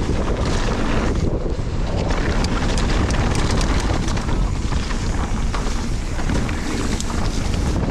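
Wind rushing over the microphone of a mountain bike riding fast down a muddy trail, with steady tyre rumble and many small clicks and rattles from the bike.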